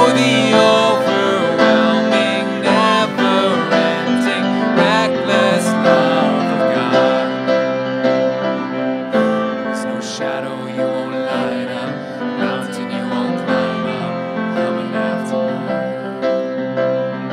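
Grand piano and violin playing a slow worship song, with singing near the start that gives way to an instrumental passage.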